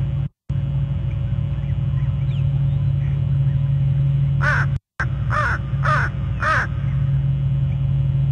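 A crow cawing about five times in quick succession, roughly half a second apart, a little past the middle. Under it a steady low hum, the loudest thing throughout, and the sound drops out completely for a moment twice.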